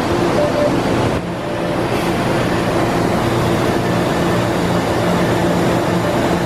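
Steady hum of a CRRC-built 01400-series Orange Line subway train standing at the platform with its doors open, its onboard equipment running with a low drone and a couple of held tones; the level dips briefly about a second in.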